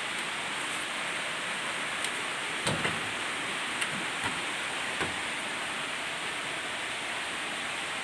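Steady rushing hiss throughout. A few light knocks and clicks come between about two and five seconds in, from the open refrigerator's plastic shelves and drawer being handled.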